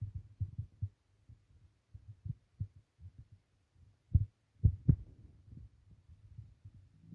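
Stomach rumbling: irregular low gurgles and rumbles in uneven clusters, the loudest few coming about four seconds in.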